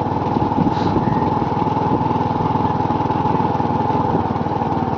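Small engine of a slow-moving vehicle running steadily close by, a rapid, even beat.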